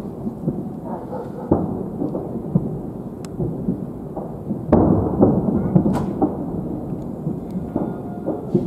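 Fireworks salute booming: shell bursts merge into a continuous low rumble, with sharper, louder bangs about a second and a half and five seconds in.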